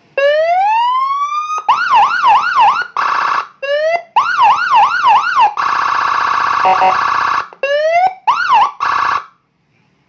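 Custom Whelen-Panzer-style police-escort (patwal) siren, a 45-watt module driving a 15-watt speaker, switched through its tones. It gives a rising wail, fast repeated yelps, and a loud steady buzzing horn tone, changing mode several times and cutting off about nine seconds in.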